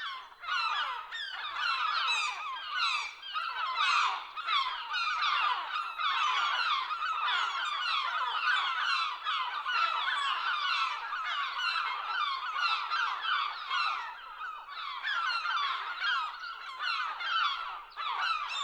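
A flock of gulls calling together: many short, falling cries overlapping into a continuous din.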